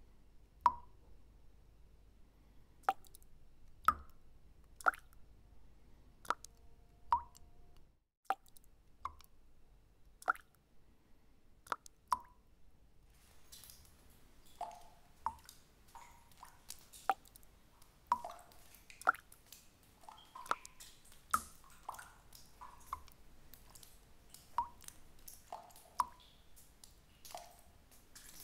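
Water drops falling one at a time into still water, each a short plink, about one a second. About halfway through a faint steady hiss comes in, and more, softer drops join between the louder ones.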